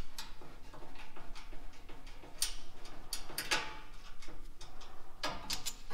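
Socket ratchet clicking in short, irregular strokes, with a few sharper metal clicks, as a stubborn bolt is worked loose.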